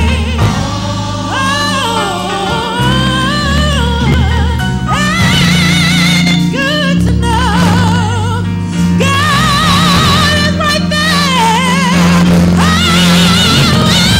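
Female gospel soloist singing long melismatic lines with heavy vibrato, over steady low accompaniment notes.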